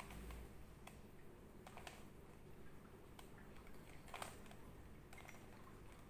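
Layers of a plastic 3x3 Rubik's cube being twisted by hand: faint, irregular clicks about once a second, the clearest about four seconds in.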